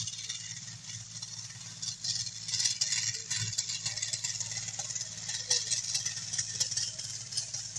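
Diesel engine of a BTR-ZD tracked armoured carrier idling steadily, with an irregular hiss and crackle over it.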